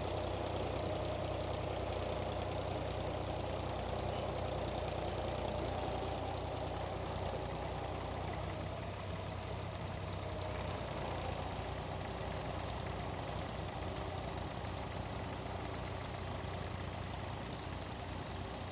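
David Brown 880 Selectomatic tractor engine running steadily under load while pulling a two-furrow Ransomes plough, growing slightly quieter over the last few seconds.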